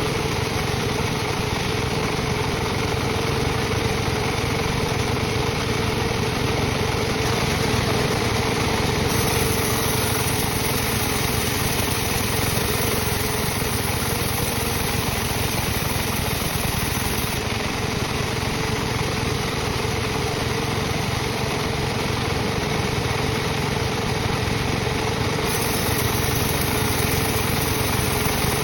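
Sawmill machinery running with a steady, even motor drone and a held tone.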